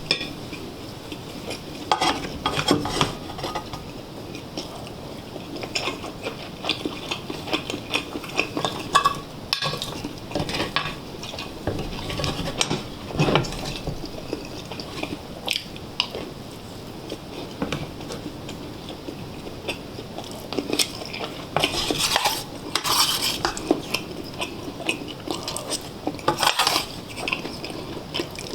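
Cutlery clinking and scraping against dishes and a pot of stew, irregular taps and scrapes of an eating meal, busiest near the end.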